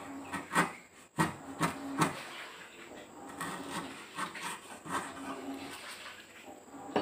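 Hand chisel paring wood out of a notch in a timber block: scraping and crackling as the fibres split and shavings curl off, with several sharp cracks in the first two seconds.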